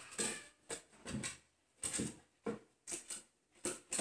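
A cocker spaniel's paws thumping and tapping on wooden stair treads as it steps down the stairs, in uneven knocks about twice a second.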